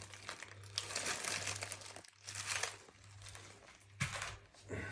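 Irregular crinkling and rustling handling noises with a few sharp clicks about four seconds in, over a steady low hum.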